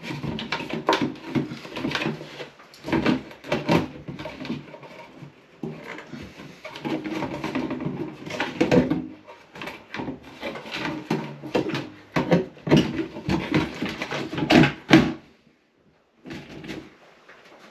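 Irregular knocks, clicks and rustling as the housing and wiring of a bathroom exhaust fan are handled and pushed into place, with a short pause near the end.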